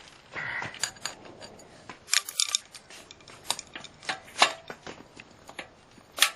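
Metal clicks and scrapes of a screwdriver prying at the push-on retaining ring that holds a hand-truck wheel on its axle. There is a short scrape near the start, a cluster of sharp clicks about two seconds in, scattered single clicks after that, and one sharp click near the end.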